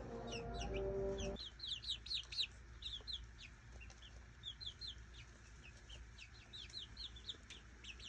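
Young chicks peeping: many short, high chirps overlapping all the time. A low hum with a few held tones underneath cuts off suddenly about a second and a half in.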